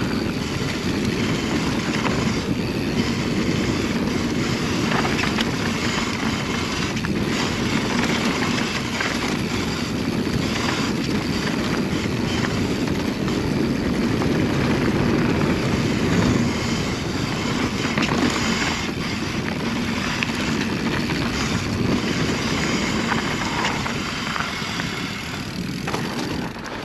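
Mountain bike rolling fast down a dirt trail: a steady rush of tyres on dirt and wind on the microphone, with short clatters and knocks from the bike over bumps. It eases a little near the end.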